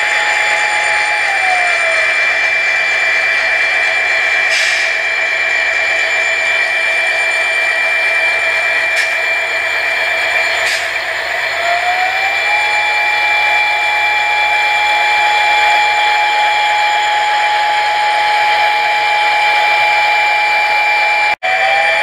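Digital sound from HO-scale SD40-2 model diesel locomotives: the recorded EMD prime mover running with a steady high whine, its lower tone dropping in pitch about a second in and rising again about halfway through as the throttle notch changes. Brief hisses come three times in the middle, and the sound cuts out for a moment near the end.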